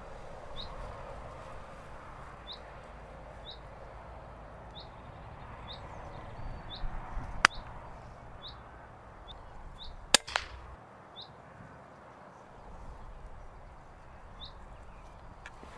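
Daystate Pulsar PCP air rifle firing at a jackdaw: a sharp crack about halfway through, then another sharp crack about three seconds later. Over a low background, a small bird calls with short high chirps about once a second.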